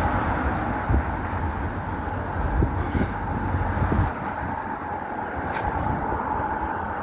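Steady outdoor background rumble like road traffic, with a faint steady hum. It starts abruptly and is heavier in the low end for the first four seconds or so.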